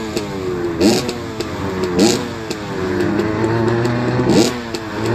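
Motorcycle engine running and being revved, with several sharp throttle blips that push the pitch up suddenly between steadier running.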